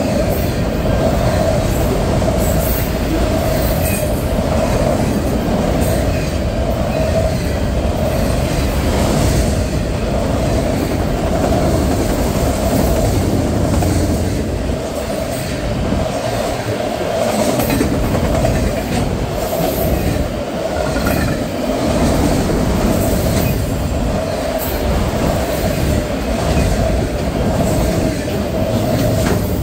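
A freight train of autorack cars rolling past at close range. The wheels on the rail make a loud, steady rumble with a constant tone running through it and scattered clicks and clanks.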